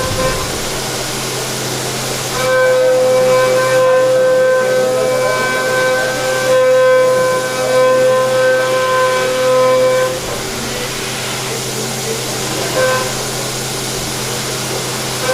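CNC machining centre cutting metal: a steady machine hum with a loud, high-pitched whine from the cutting tool. The whine starts about two seconds in, holds for some eight seconds, stops, and comes back in short bursts near the end.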